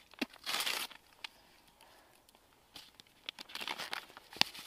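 Aluminium foil crinkling as it is handled, then a seasoning sachet rustling as it is opened, with a sharp click near the end.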